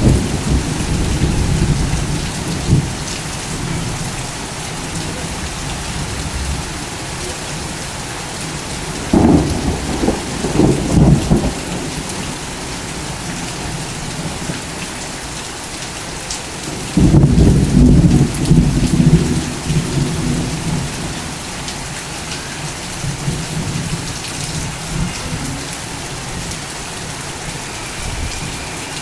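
Torrential rain pouring steadily, with loud low rumbles surging in at the start, about nine seconds in and again around seventeen seconds in.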